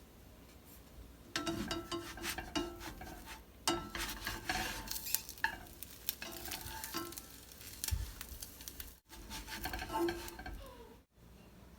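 Metal utensil clinking and scraping against a pan, each knock ringing briefly, while food sizzles; the sound breaks off abruptly twice near the end.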